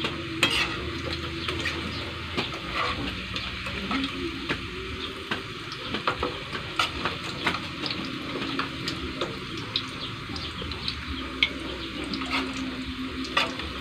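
Banana slices frying in oil in a nonstick pan: a steady sizzle, with light clicks of a metal spoon against the pan as the slices are turned and lifted out.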